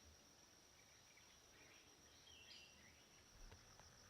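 Near silence: faint forest ambience with a steady high-pitched insect drone and one short, faint bird call about two and a half seconds in.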